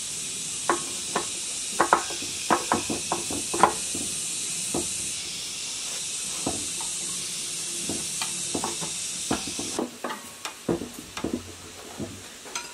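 Metal parts clinking and tapping as a new fuel injection pump and its fuel line are fitted by hand to the crankcase of an 1115 diesel engine: irregular sharp clicks, thickest in the first few seconds. A steady high hiss sits behind them and drops away about ten seconds in.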